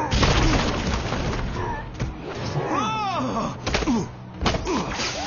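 Cartoon fight sound effects over orchestral score: a heavy thud at the start, sweeping sounds that rise and fall in pitch around the middle, and a couple of sharp hits after.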